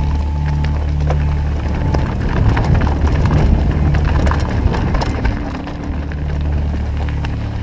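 Mountain bike clattering and rattling over loose rocks on a descent, with many irregular knocks, thickest in the middle. Background music with a steady bass line plays throughout.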